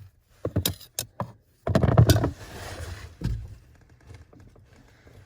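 A screwdriver being pulled out of a truck's parking brake pedal assembly, where it held the cable slack. Metal clicks, then a louder clunk and rattle about two seconds in, and a softer knock about a second later.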